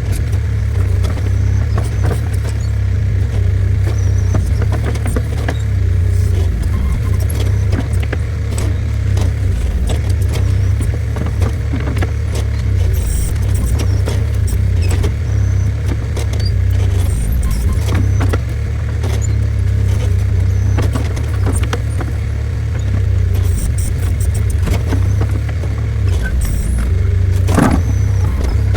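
New Holland skid steer's engine running steadily, with frequent short metallic clanks and knocks from the machine at work; one louder knock near the end.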